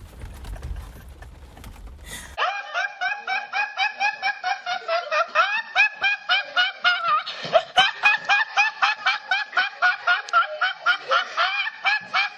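High-pitched rapid laughter, about four or five 'ha's a second, cutting in sharply about two seconds in and running on steadily for about ten seconds.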